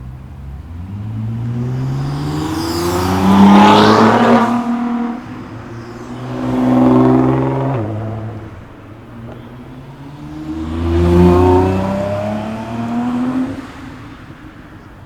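Nissan GT-R engine revving hard as the car pulls away, its pitch rising in three sweeps. The second sweep cuts off abruptly about eight seconds in, and the sound fades near the end.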